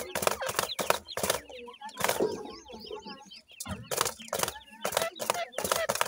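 Francolins pecking and scratching in dry, crumbly clay: rapid sharp clicks and rustles. Around the middle comes a burst of high, quick chirping calls from the young birds.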